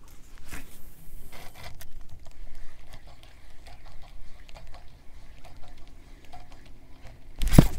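A baitcasting rod is cast and the lure reeled back: a brief hiss of line leaving the reel about half a second in, then faint irregular clicks of the retrieve. A sudden loud commotion comes near the end as a fish hits the lure.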